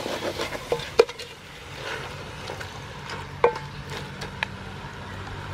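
A wooden spatula stirring chicken and curry paste in a large metal pot, scraping and knocking against the pot's side. Three sharp knocks ring briefly off the metal: about a second in, and twice more later.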